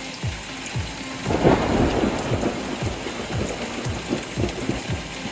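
A steady thumping beat, low thumps falling in pitch about twice a second, under a storm-like rushing noise that swells loudly about a second and a half in and then settles into a rain-like hiss.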